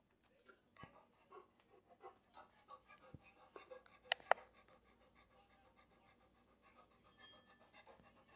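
Large dog panting faintly close up, with a couple of short sharp clicks about four seconds in.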